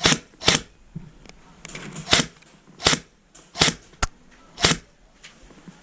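Airsoft gun firing single shots, about seven sharp cracks in irregular succession.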